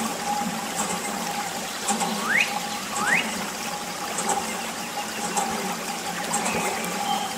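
Water trickling and splashing from a thin plastic tube onto a toy tractor, over the steady hum of a small water pump feeding the tube.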